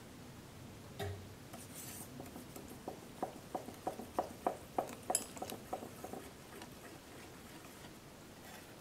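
Wire balloon whisk stirring coconut milk into tapioca and rice flour in a ceramic bowl, its wires clicking against the bowl about three times a second. There is a single knock about a second in.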